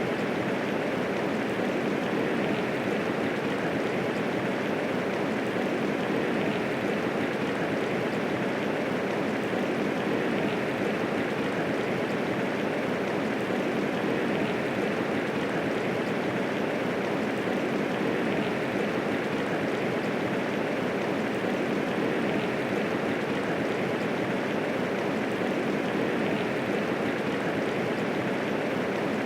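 Steady medium rainfall: an even, unbroken hiss of rain with no thunder.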